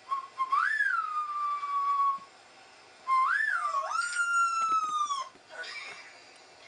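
A puppy's high, whistle-like howls playing from a laptop's speakers: two long calls, each rising sharply and then sliding slowly down in pitch, with a pause of about a second between them.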